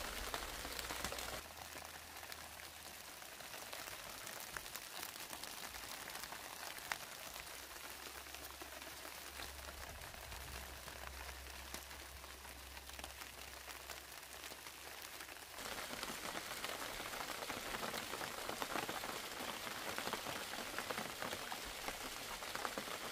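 Steady rain falling, a haze of many small drop ticks; it drops in level about a second and a half in and comes back louder about two thirds of the way through.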